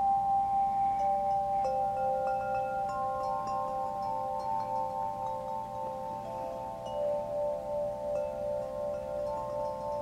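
A wind chime ringing: several long, clear tones at different pitches, fresh strikes every second or two, each note ringing on with a slow pulsing and overlapping the next.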